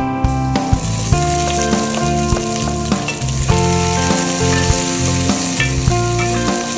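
Diced onion sizzling in hot oil in a stainless steel pot and stirred with a wooden spoon, the sizzle starting about half a second in. Background music plays underneath.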